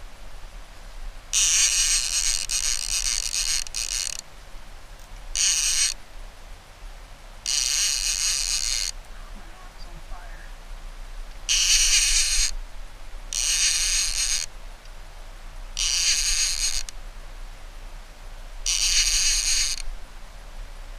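Fishing reel buzzing and ratcheting in seven bursts of half a second to about three seconds, with short pauses between, as line is given and taken while a hooked Chinook salmon is played.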